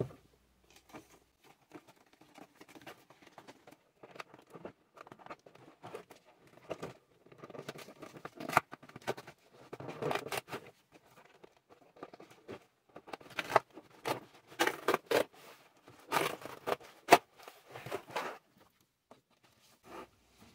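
Sped-up sound of a doll being taken out of its toy packaging: cardboard, plastic and paper rustling and tearing in irregular bursts, with sharp clicks and snaps, busiest and loudest in the second half.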